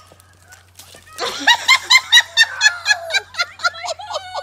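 A person laughing hard in a rapid, high-pitched run of 'ha-ha-ha', about five bursts a second, starting about a second in and slowly tapering off.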